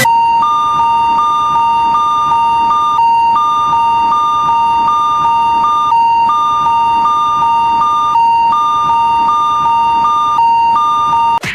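Electronic railroad crossing warning alarm: a steady tone with a slightly higher tone pulsing on and off about once every 0.7 seconds, with a few short breaks. It cuts off suddenly near the end.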